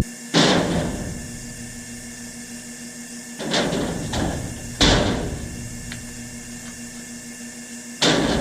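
A handful of sharp thumps, about five, unevenly spaced, each dying away quickly, over a faint steady hum.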